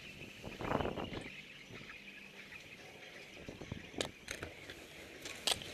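Skis scraping and clattering over loose rocks and gravel, loudest about a second in, with a few sharp clicks near the end.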